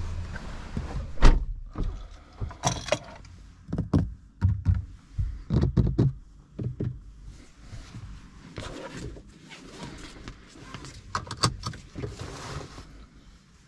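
A series of knocks and clunks in a car, the loudest about a second in and several more over the next five seconds, then quieter handling and rustling sounds.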